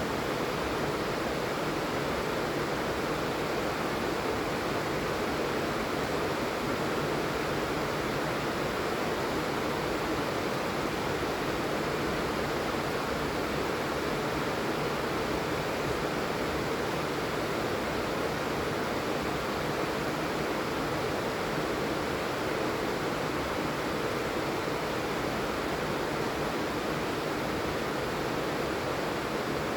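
Steady heavy rain falling, an even rushing hiss with no distinct drops or pauses.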